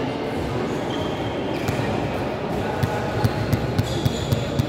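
Volleyballs thumping on a gym court, with a quick run of thumps, about three or four a second, starting a little past halfway, and short sneaker squeaks over a steady background rumble of the hall.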